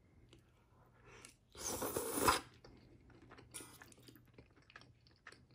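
A person slurping up a mouthful of noodles about a second and a half in, with a shorter slurp a little later, then chewing with small wet mouth clicks.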